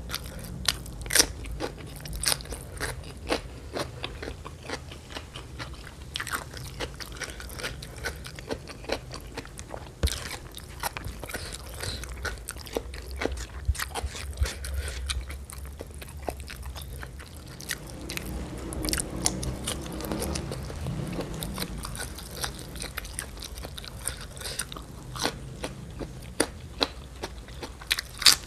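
Close-miked eating sounds: crisp crunching bites into raw vegetables such as cucumber, with wet chewing of rice in between, and a quick run of louder crunches near the end.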